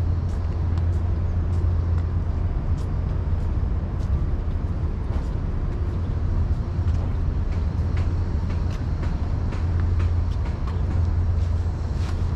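Steady low rumble of city ambience under an even hiss, with a few faint ticks scattered through it.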